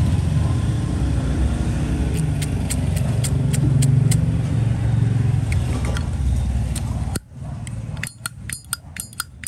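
Steady low rumble of road traffic that cuts off about seven seconds in. It is followed by a run of quick, sharp metallic clinks, several a second, from a Zippo lighter's lid and cam being handled.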